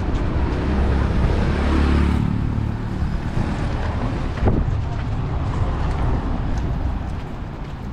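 A car passing on the street: a low rumble that swells about two seconds in and then fades, over steady street noise and some wind on the microphone.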